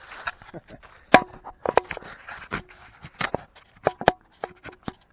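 Irregular sharp knocks and clicks, about a dozen, a few of them with a brief ringing tone.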